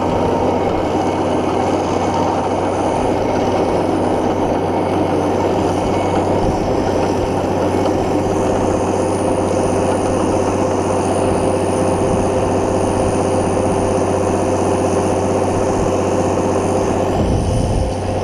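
Tractor diesel engine and grain-crimping mill running steadily while a trailer is filled with crimped grain, a constant drone with steady whining tones. A rougher low rumble joins about a second before the end.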